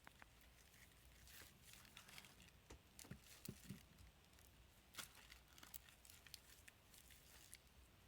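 Near silence with faint rustling of packaging and scattered small clicks and taps.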